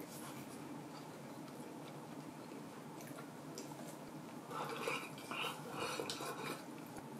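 Quiet chewing of a mouthful of sushi, then several louder sips from a soup bowl over about two seconds near the end.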